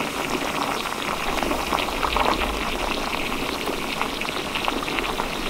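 Pot of salted water with fusilli pasta at a rolling boil, bubbling and popping steadily.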